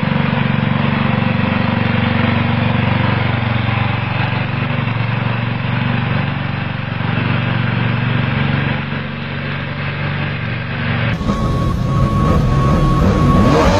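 Riding lawn tractor engine running steadily as the tractor drives. About eleven seconds in, the sound cuts off abruptly and music takes over.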